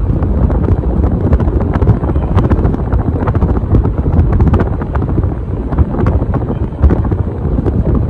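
Loud wind buffeting on the microphone: a steady low rumble with scattered crackles, the airflow from a running Hunter 2nd Century ceiling fan hitting the mic.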